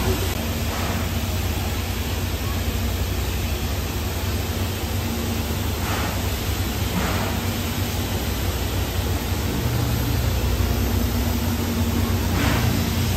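Steady hiss of steam from a standing JNR 8620-class steam locomotive, No. 58654, over a low rumble.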